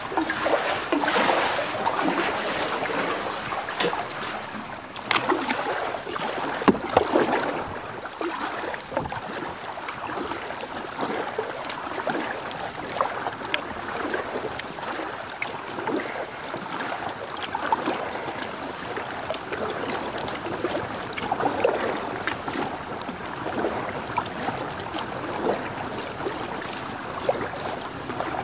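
Kayak paddle dipping and pulling through calm river water: irregular splashes and drips, with a few sharper knocks in the first several seconds.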